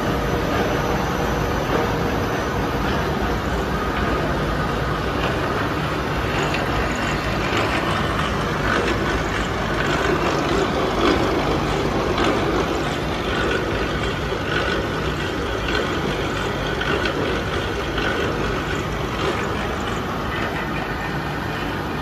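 Small continuous biomass carbonization furnace running: a steady machinery drone from its electric motors, gear drives and blower fan.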